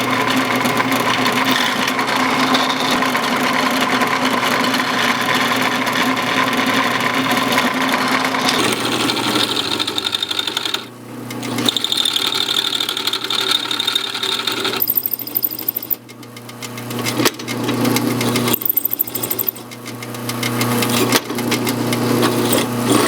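Drill press running and drilling holes in steel blanks: a steady motor hum under a fast, chattering cutting noise, which eases off briefly a few times between holes.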